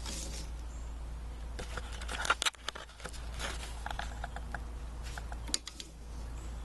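Garage door opener belt and metal hardware being handled and fitted: scattered small clicks and rustles, with a sharper cluster of clacks a little past two seconds in, over a steady low hum.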